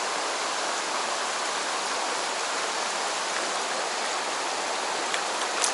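Mountain stream water rushing steadily over rocks, a constant even hiss. A brief high tick sounds near the end.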